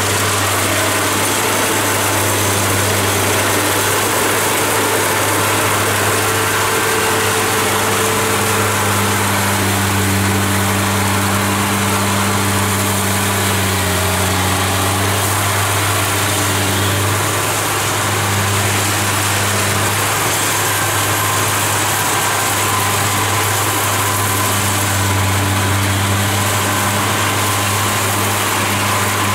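Kubota DC70 Plus rice combine harvester's diesel engine running steadily under load as it cuts and threshes lodged rice: a steady engine drone with a broad hiss of the working machinery over it.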